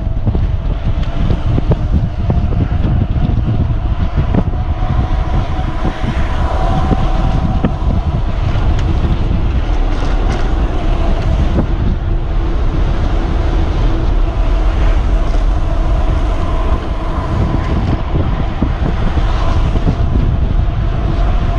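Wind buffeting the microphone on a mountain bike coasting fast downhill on pavement: a loud, steady rumble with a faint wavering whine underneath.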